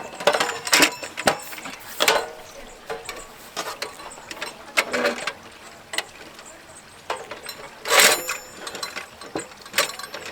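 Clicks and clacks of a MAXX Fold Range folding portable gas burner being handled, its metal parts snapping into place in a series of separate, irregular knocks. The loudest comes about eight seconds in.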